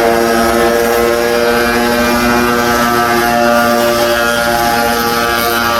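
An engine or motor running at a steady high pitch, a held hum with many overtones, over the even hiss of heavy rain.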